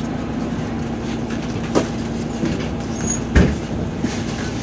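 Inside a MAZ 203 low-floor city bus on the move: steady engine and road noise with a constant hum. The body knocks and rattles over the road, with a sharp knock about two seconds in and a heavier thump a little past halfway.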